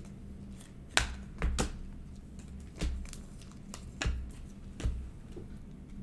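2020 Panini Optic trading cards being flipped one at a time off a hand-held stack, each card giving a sharp snap or tap, about six at uneven intervals.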